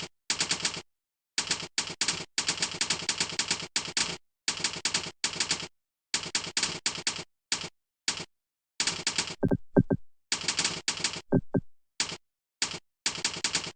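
Typewriter-style key-click sound effects from a typing program, coming in quick runs with short pauses. A few short electronic tones that drop steeply in pitch sound in the middle.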